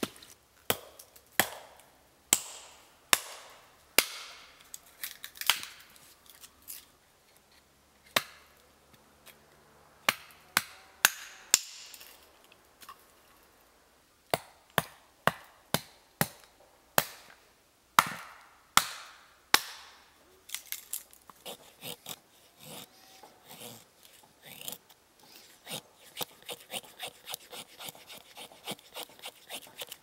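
A hatchet chopping and splitting wood on a stump: sharp single strikes, often a second or so apart. In the last third they turn into a quicker run of lighter strikes, two or three a second, as the hatchet splits thin sticks for kindling.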